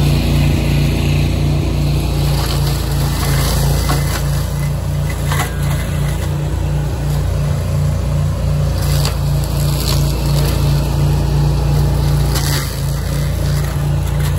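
Beavertech brush mulcher's self-contained Honda 20 hp engine running steadily at working speed while its cutting head grinds brush. It makes a constant drone with a regular throb about twice a second, broken by a few short sharp cracks.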